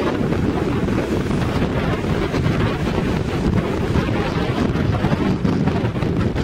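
Hurricane wind buffeting the microphone in a steady, heavy low rumble, over rough surf breaking against shoreline rocks.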